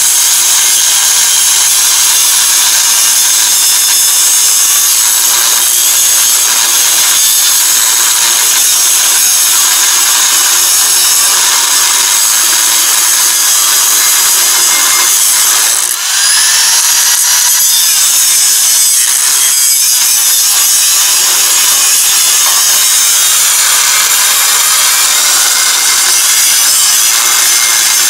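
Corded electric angle grinder grinding on the steel frame of a crawler carrier, a loud steady high-pitched grinding. About halfway through it stops for a moment and spins back up with a rising whine.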